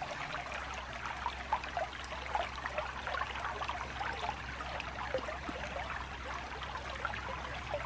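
Shallow creek trickling steadily over a small riffle.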